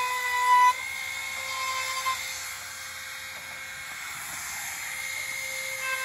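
Milwaukee cordless router running with a steady high whine as it routes the edge of a rough-sawn oak skirt board. It is louder for about the first second, then settles.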